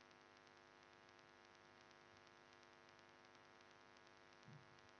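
Near silence: room tone with a faint, steady electrical hum. A faint, brief low sound comes about four and a half seconds in.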